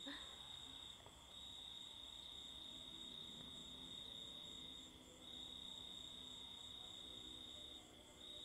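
Night insects trilling: a faint, steady high-pitched drone that breaks off briefly about a second in, again at about five seconds, and near the end.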